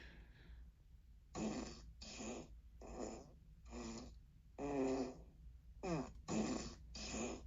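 Amazon Alexa smart speaker playing its "crisp fart" sound effect: a string of about eight short farts, each under half a second, starting a little over a second in.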